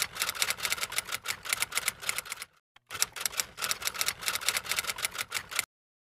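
Typing sound effect: rapid typewriter-like key clacks in two runs, with a brief pause about two and a half seconds in, stopping shortly before the end.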